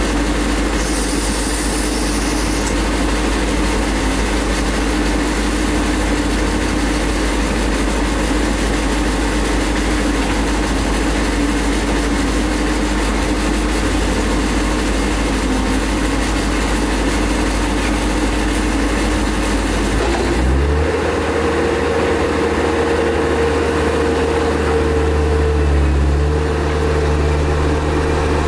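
Volvo EC210D crawler excavator's diesel engine running steadily with a hum. About twenty seconds in, the engine note rises and holds at a higher pitch.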